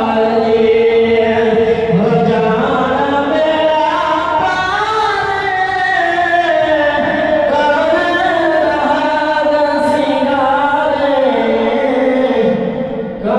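A man's solo voice singing a naat, an Urdu/Punjabi devotional poem in praise of the Prophet, unaccompanied, with long held notes that bend and ornament slowly.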